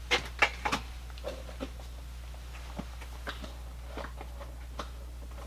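Handling noises as items are moved about: a few sharp clicks and knocks in the first second, then scattered faint ticks, over a steady low hum.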